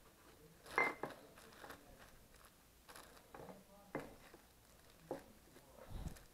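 Scattered light knocks and clinks of hard objects, about eight spread irregularly over six seconds. The loudest comes about a second in and rings briefly.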